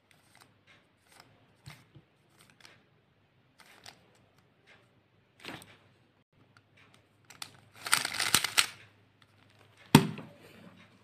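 Plastic 3x3 speedcube being turned by hand: scattered soft clicks of single layer turns, then a fast run of turning clicks about eight seconds in. Near the end, one sharp knock as the cube is set down on the table.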